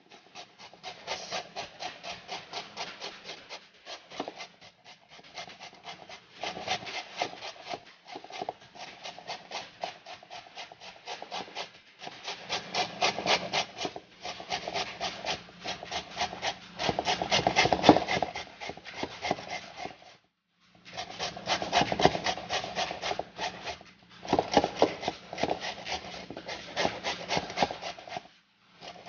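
Green papaya being shredded on a stainless steel box grater: quick, rhythmic scraping strokes of the fruit across the metal blades, stopping briefly a few times.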